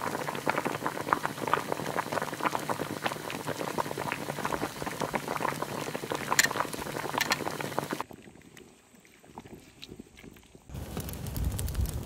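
A cauldron of chicken soup boiling hard, with dense popping of bubbles over a steady hum. About eight seconds in it cuts off suddenly to a quiet stretch, and near the end a low rumble comes in.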